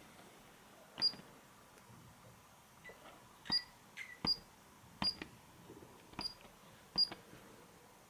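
Paradox LCD alarm keypad giving a short beep with a click at each key press, six presses spaced irregularly about a second apart, as a six-digit serial number is keyed in.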